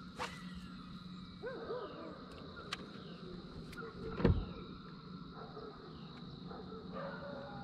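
Steady electric hum of a bass boat's bow-mounted trolling motor, with a few sharp clicks and one loud, dull thump about four seconds in.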